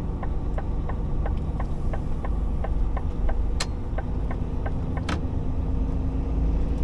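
Truck diesel engine running steadily with a low rumble, over a regular light ticking, a little under four ticks a second, that stops about five seconds in. Two sharper clicks come near the middle.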